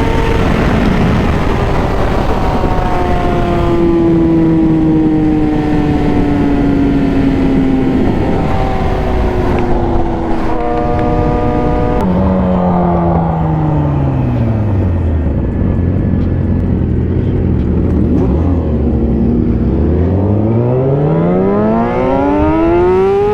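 Yamaha R6 inline-four sport-bike engine heard from the saddle: revs fall slowly through a few gear changes as the bike slows, settle to a low steady note near idle for several seconds, then climb steeply as it accelerates hard near the end, over constant rushing noise.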